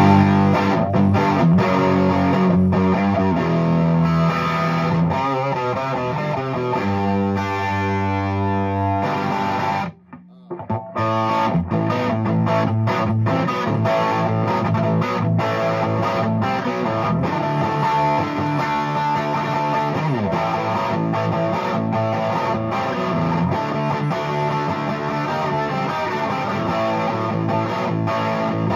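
Gibson ES-335 semi-hollow electric guitar played on its neck pickup through a Fuchs Train-45 tube amp with 6V6 power tubes, into a single 12-inch Vintage 30 speaker cabinet. A continuous run of picked notes and chords, with a brief break about ten seconds in before the playing resumes.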